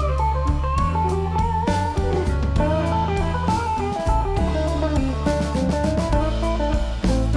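Background music: a lead guitar playing a gliding melody over bass and a steady drum beat.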